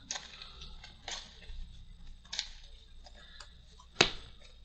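Trading cards being handled and laid down on the table: a few soft brushes and taps, with a sharper tap about four seconds in.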